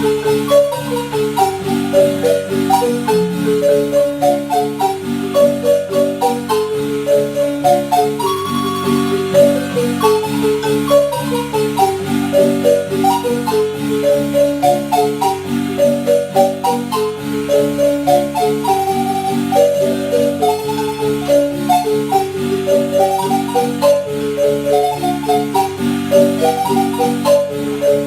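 Marimba music: a repeating melody of quick mallet-struck notes over a steady bass line.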